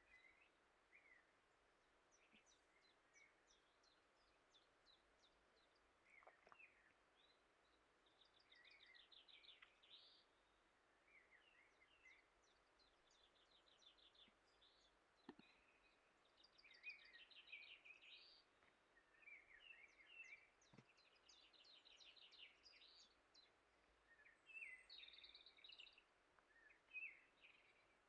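Faint birdsong: many quick chirps and rapid trills from small songbirds, heard over a quiet steady hiss, with a few faint clicks.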